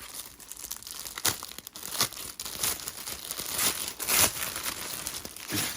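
Packaging being crinkled and torn open by hand to unwrap a small fabric pouch, in irregular rustles with a few louder sharp crackles.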